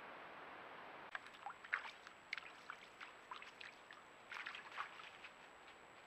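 Steady microphone hiss, then from about a second in, irregular plinks and small splashes of a shallow creek trickling, with a cluster about four seconds in.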